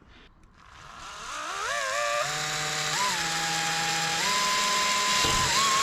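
Electric drill with a 2 mm bit spinning up about a second in, its whine rising in pitch, then running steadily with a couple of steps in speed as the trigger is eased, drilling a pilot hole in a motorhome's side panel.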